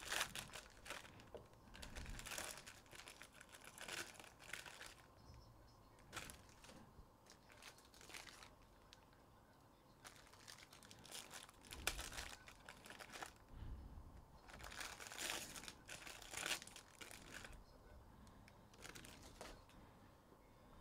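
Wrappers of baseball card packs being torn open and crinkled by hand, in faint, irregular bursts of rustling.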